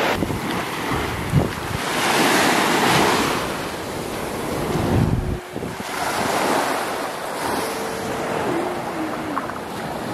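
Small waves breaking and washing up a sandy beach, the surf swelling and ebbing, with wind buffeting the microphone.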